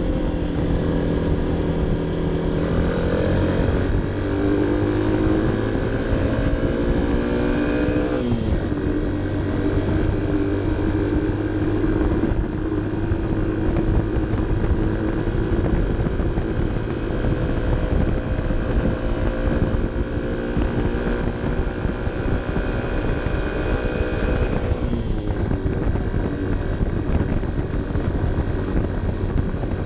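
Honda CB 125 F's single-cylinder four-stroke engine pulling uphill, heard onboard with wind rushing over the microphone. The revs climb and drop sharply twice, about eight seconds in and again later on.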